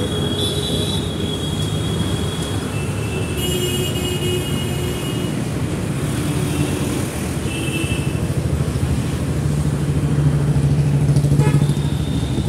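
Steady road traffic: engines and tyres of motorcycles, cars and buses, with several short horn notes. A passing vehicle's engine hum swells to the loudest point about ten to eleven seconds in.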